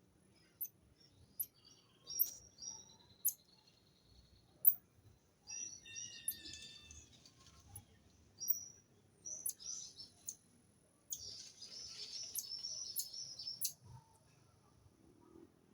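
Wild birds chirping and calling: short, sharp high chirps scattered throughout, with louder runs of twittering about five seconds in and again from about eleven to fourteen seconds, over a faint steady high hum.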